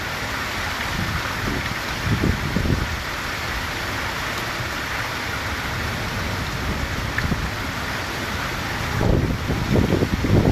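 Heavy rain pouring steadily in a strong storm, with gusts of wind rumbling on the microphone about two seconds in and again near the end.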